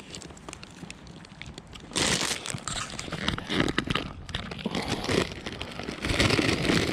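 Rustling and crunching of movement through dry leaves and undergrowth. It is faint at first with scattered crackles and gets much louder and denser from about two seconds in.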